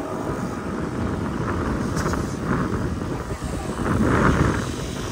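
Off-road 4x4 driving over sand dunes: a rough, steady rumble of engine and ride, swelling loudest about four seconds in.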